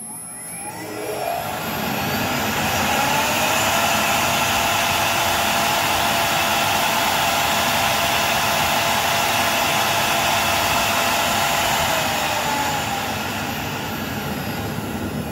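CNC router spindle spinning up with a rising whine, running steadily at speed while the bit plunges a small hole into the MDF spoilboard, then winding down near the end.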